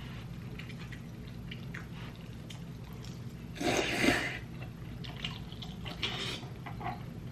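Wet mouth sounds of eating ramen noodles in broth: small moist clicks throughout and one loud slurp of noodles off a fork a little past halfway.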